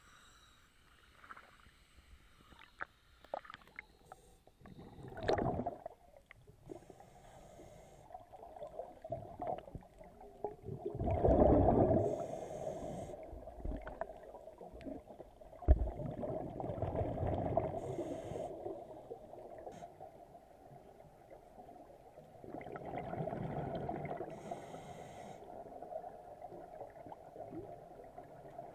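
Scuba regulator exhaust bubbles gurgling underwater, a burst about every six seconds with each breath out, with quieter water sounds and small clicks between.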